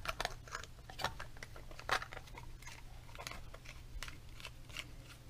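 Small irregular plastic clicks and scrapes from a PIR motion sensor and its plastic cover plate being handled and fitted together by hand.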